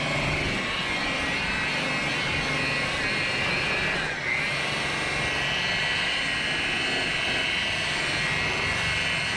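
Electric polisher running steadily with a high whine, buffing the oxidized fibreglass of a sailboat cockpit; about four seconds in the whine dips briefly and comes back up.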